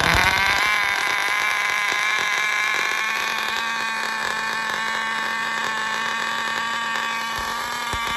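HPI NitroStar nitro engine of an RC truck firing up and running at high revs, a loud, steady high-pitched whine whose pitch dips slightly in the first second and then holds. The engine is running away: it has just started after a rebuild and cannot be throttled down.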